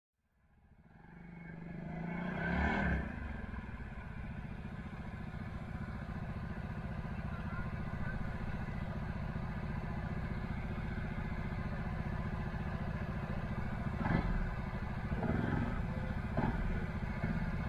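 Quad bike (ATV) engine idling steadily, fading in over the first two seconds, with a brief louder rise about three seconds in. A few short knocks or clatters near the end.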